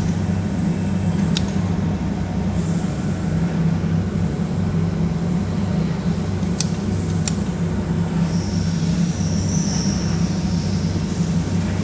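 Steady electrical hum of a jewelry laser welding machine running, with three sharp snaps from single laser spot-weld pulses fired by the foot switch.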